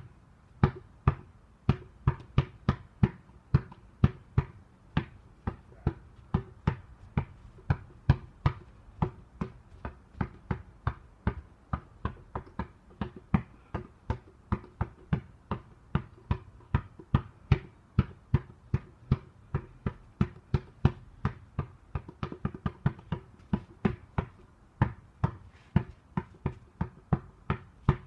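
A basketball being dribbled continuously, a steady run of sharp bounces at about two to three a second.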